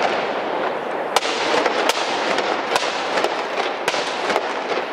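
Feu de joie: a ripple of rifle shots fired one after another down a line of soldiers, a dense, continuous crackle with about ten louder single cracks standing out.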